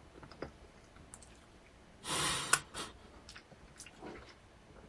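Mouth sounds of a person eating a soft, liquid-filled chocolate: faint lip and tongue clicks, and a loud breathy rush about two seconds in that ends in a sharp click, followed by a few softer breaths.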